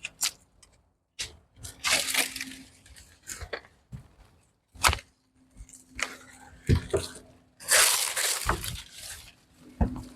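Dead, dry plant growth being broken off and pulled away by hand: several sharp cracks with stretches of dry rustling in between.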